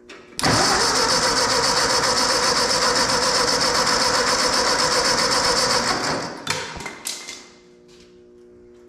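Ford 8N tractor's electric starter cranking its four-cylinder flathead engine steadily for about six seconds without the engine catching, then stopping with a few clicks.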